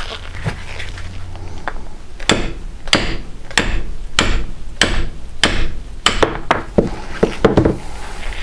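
A heated aluminium chainsaw crankcase half is struck repeatedly against a wooden block to knock out its crankshaft ball bearing. About a dozen sharp knocks begin a couple of seconds in and come closer together near the end.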